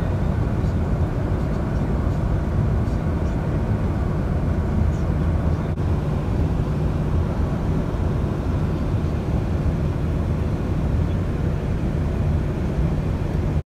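Steady low rumble inside a coach bus cruising at motorway speed: engine and tyre noise heard through the cabin.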